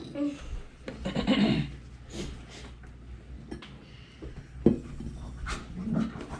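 Heavy, breathy exhales and sniffs from people whose mouths are burning from Carolina Reaper pepper, with a sharp tap a little before five seconds in.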